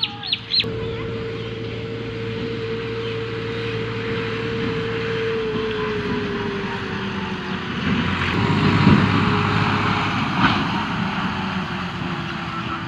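A motor running with a steady hum that slowly drops in pitch, growing louder about eight seconds in. A few short high squeaks right at the start.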